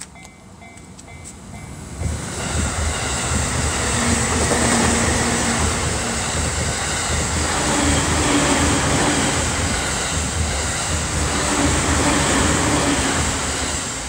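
A train passing close by across a railway level crossing. Its noise builds about two seconds in, stays loud for about ten seconds with a repeating low beat from the wheels on the rails, and starts to fade near the end.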